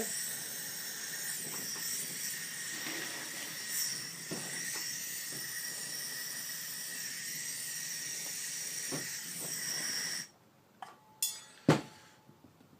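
Handheld gas torch hissing steadily while heating shrink tubing over a soldered bullet connector, then shut off suddenly about ten seconds in. A few small clicks and one sharp knock follow.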